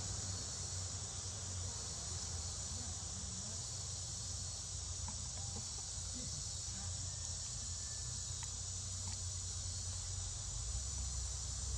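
Steady high-pitched drone of an insect chorus, with a low rumble underneath.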